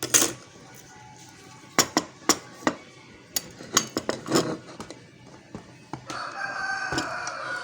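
A run of sharp clicks and taps as the hard disk and its parts are handled, then a rooster crowing: one long call that falls slightly in pitch near the end.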